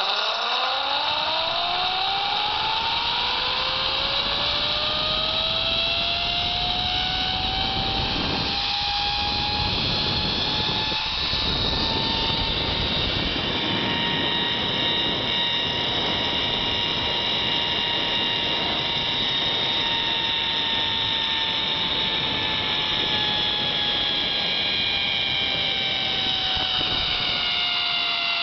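Zip-line trolley pulleys running along the steel cable: a whine that rises quickly in pitch as the rider picks up speed in the first couple of seconds, holds steady, and starts to drop near the end as the trolley slows, over steady rushing air noise.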